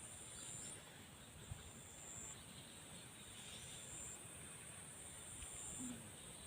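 Insects chirring in a high, thin drone that swells and drops back in stretches of a second or two, over a faint hiss.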